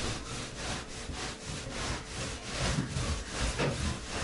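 Wet mop scrubbed back and forth over a wooden floor, with quick repeated rubbing strokes, about three a second.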